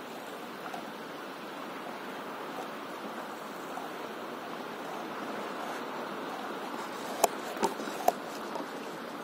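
Calm sea water lapping against an inflatable paddle board, a steady wash, with three sharp clicks close together near the end.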